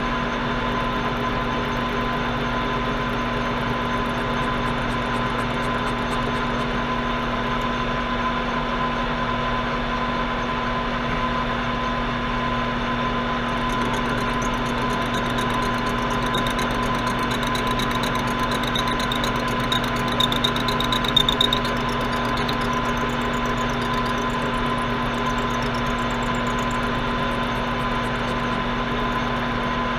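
Atlas metal shaper running steadily under power, its motor and drive humming evenly as it takes light cuts in a Delrin workpiece, with a few brief louder clicks a little past the middle.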